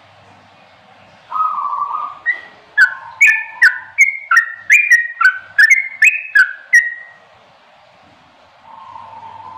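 Yellow-vented bulbul (trucukan) singing a rapid run of song: a lower opening note, then about a dozen quick alternating whistled notes, roughly two or three a second, ending about seven seconds in, with one faint note near the end.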